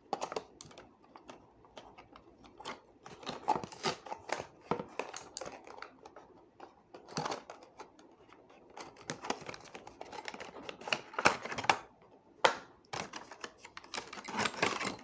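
Cardboard box and clear plastic display case of a Matchbox toy car being opened and handled: irregular clicks, taps and rustles, some sharper ones near the end.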